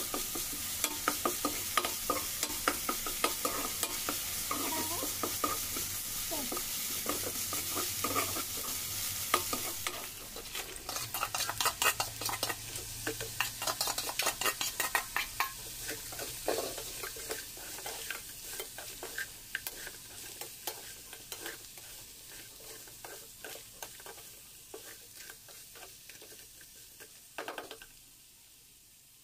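Curry masala frying and sizzling in a nonstick pan while a steel spoon stirs it, scraping and clicking against the pan. The sizzle is steady at first; after about ten seconds the stirring clicks come thick and fast as the sizzle fades, and both die down near the end.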